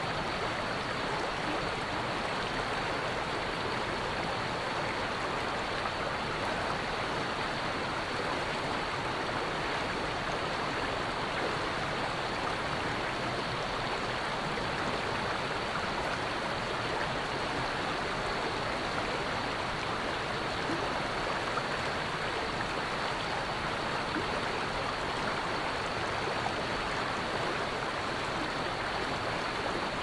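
Mountain stream pouring over a fallen log in a small, wide waterfall and splashing over the rocks below: a steady, even rush of falling water.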